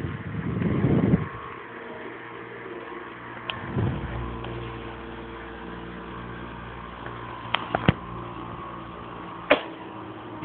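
Philips 2000-16-M table fan's motor running with a steady hum. A rush of noise fills the first second, and a few sharp clicks come near the end.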